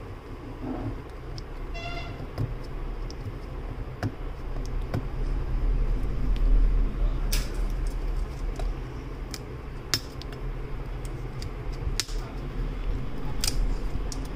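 Plastic shrink-wrap on a small cardboard box being picked at and torn off by hand: scattered crinkles, rips and clicks over a steady low rumble. A brief tone sounds about two seconds in.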